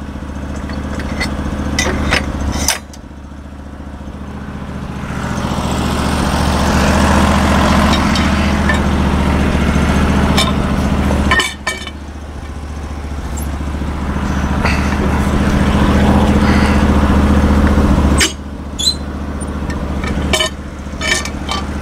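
An engine running steadily, with long swells of louder mechanical noise that build over several seconds and cut off suddenly, about 3, 11 and 18 seconds in. A few sharp knocks near the start and the end.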